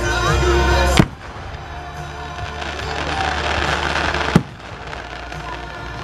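Two sharp, loud bangs of aerial firework shells bursting, one about a second in and another at about four and a half seconds, heard over music playing.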